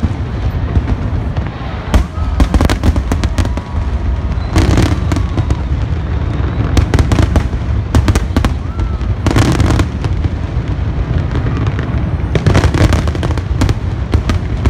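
Aerial fireworks shells bursting in quick succession: sharp bangs, with dense runs of crackling about four and a half, nine and a half, and twelve and a half seconds in, over a steady low rumble.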